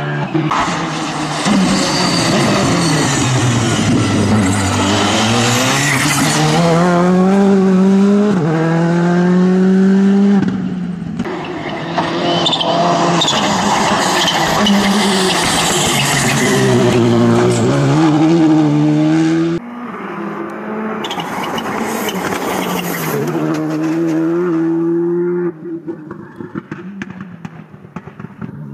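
Skoda Fabia RS Rally2 rally car running hard on a test stage, its engine note rising and falling again and again as the driver accelerates and shifts. About two-thirds of the way through the sound drops abruptly, then the engine rises and falls once more, more quietly, before fading.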